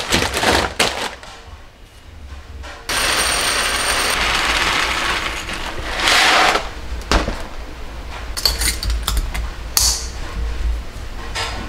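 Foil seaweed packets rustling, then a steady rush of roasted barley grains pouring into a glass jar, swelling briefly. Sharp clinks and clicks of the jar's glass lid and wire clasp follow.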